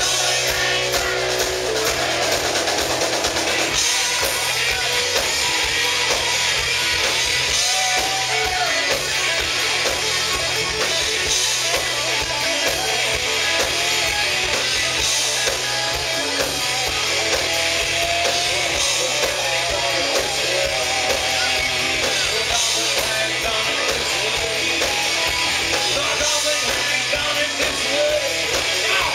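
Live rock band playing an instrumental passage with electric guitars, bass and drum kit. It runs steadily and loudly throughout, with a wavering lead guitar line over the band.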